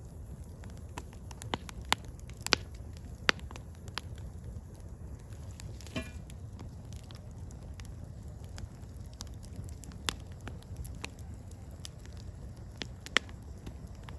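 Firewood burning: a steady low rumble of flames with sharp crackles and pops at irregular intervals, and a brief hiss near the middle.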